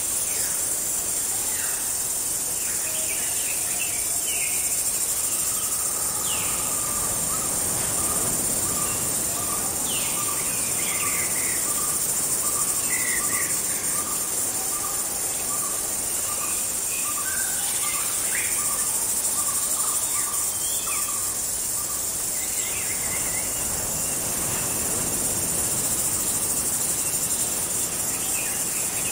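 Night jungle ambience: a steady high-pitched chorus of crickets and other insects, with scattered short bird calls. From about six to twenty seconds in, a run of short, evenly spaced notes repeats, about three every two seconds.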